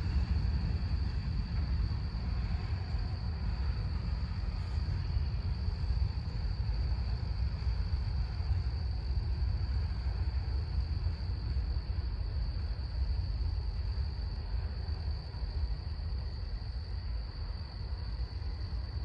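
Crickets trilling in one steady, high, unbroken tone, over a low rumble that slowly fades.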